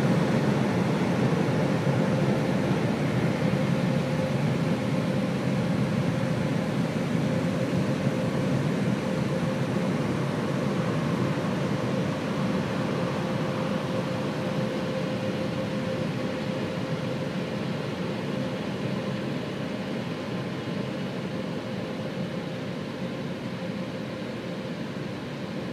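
Automatic car wash drying blowers running, a steady rush of air heard from inside the car, slowly getting quieter, with a faint steady whine that fades out about two-thirds of the way through.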